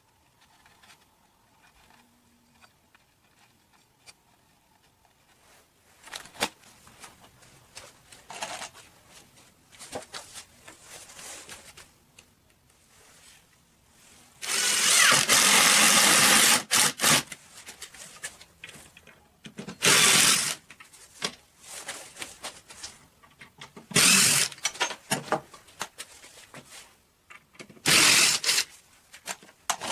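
Handheld cordless drill run in several bursts into a wooden frame: one of about two and a half seconds midway, then shorter ones roughly every four seconds. Quieter knocks and handling of the wood in between.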